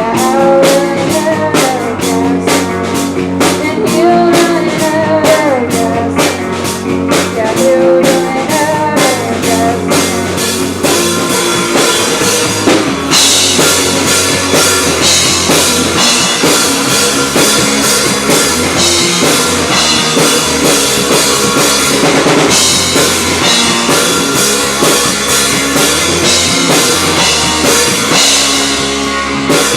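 Live rock band playing a shoegaze-style song: drum kit, distorted guitars and bass, with a wavering melody line over it in the first ten seconds. About thirteen seconds in the cymbals and guitars thicken into a denser wash that carries on.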